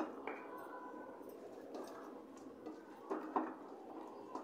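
Faint wet handling of spice-coated rohu fish heads being mixed by hand in a steel bowl, with a couple of soft knocks a little after three seconds in.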